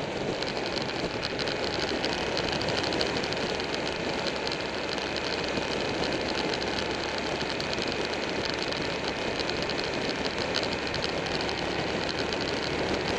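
Steady wind rush over the microphone of a moving motorcycle, with its engine running underneath at a constant cruising speed.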